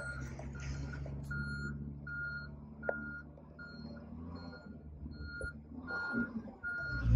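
A short electronic warning beep repeating about twice a second over the steady low idle of a pickup's 6.2-litre V8.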